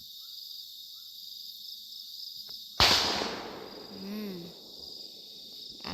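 A single firecracker going off with a sharp bang about three seconds in, dying away over about a second, over a steady chorus of crickets.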